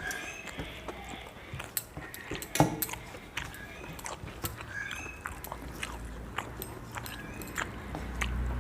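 Close-up eating sounds of people eating rice and fish by hand: chewing and lip-smacking with many small sharp clicks, and one louder knock about two and a half seconds in.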